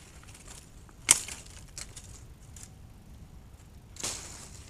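One sharp blow of an axe into wood about a second in, followed near the end by a softer rustling sound that fades over about half a second.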